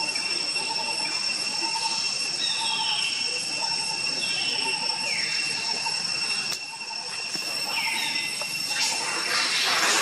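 Outdoor forest ambience: a steady high-pitched insect drone, with a short lower note pulsing about twice a second and a falling whistled call repeating about every second and a half. A louder rustling hiss rises near the end.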